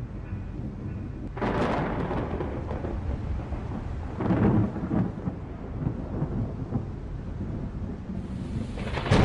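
Thunderstorm: steady rain with rolls of thunder swelling about a second and a half in, again around four seconds, and near the end.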